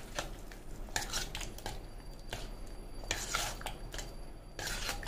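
Metal spoon stirring thick sweet rice pudding with dry fruits in a metal pot, in a series of short, irregular scraping strokes against the pot.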